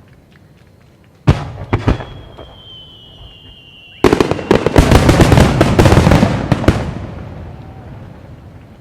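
Fireworks going off: a sharp bang followed by a couple more, then a whistling shell whose tone falls slightly, then a dense crackling burst of many quick pops about three seconds long that fades away.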